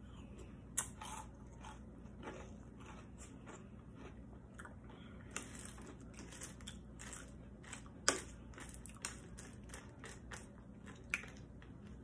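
Close-up chewing and crunching of a mouthful of Drumstick cereal in milk, corn cereal pieces and chocolate nuggets, with a few sharp clicks, the loudest about a second in and about eight seconds in.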